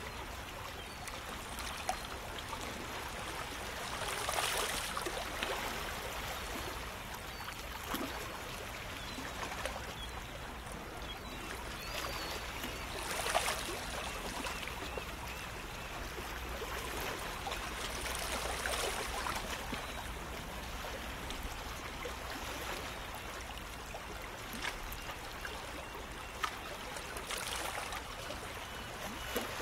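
Water trickling and lapping steadily, swelling into a louder wash every several seconds, with small splashes.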